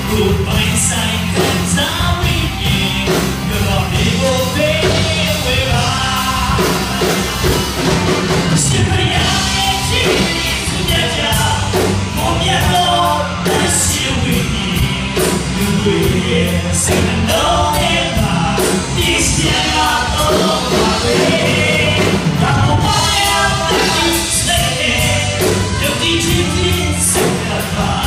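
Amplified live band playing: several singers over a drum kit with a steady beat.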